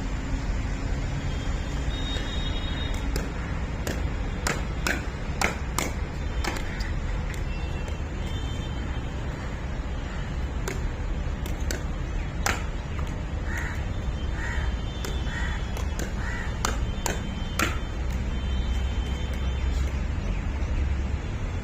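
Pickleball paddles popping a ball back and forth in quick volleys: a burst of rapid sharp pops, then scattered single hits, over a steady low rumble. A bird calls four times near the middle.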